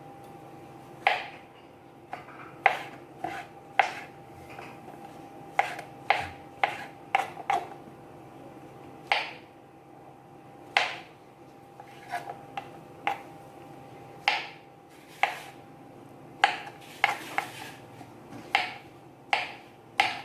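Knife cutting mushrooms on a cutting board: sharp, irregular knocks, some in quick runs of two or three, some with a short ring, over a faint steady hum.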